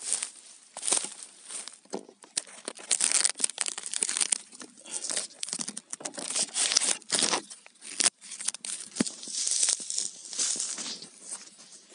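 Handling noise from a phone camera held in the hand: fingers rubbing and scraping over the microphone, giving close, irregular bursts of rustling and crackling.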